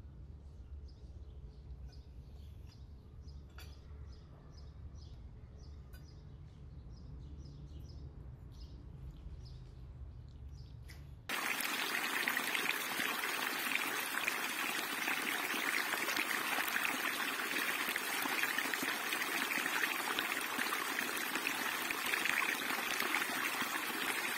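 Faint birds chirping over a low steady hum. About eleven seconds in, this cuts suddenly to a small stream of water splashing steadily down a little rocky cascade, much louder.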